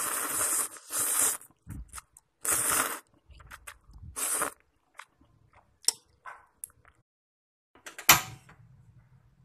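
Someone slurping and chewing instant noodles with kimchi: four short, loud slurps in the first few seconds, then scattered small mouth clicks. About eight seconds in comes a sharp knock, followed by a low hum.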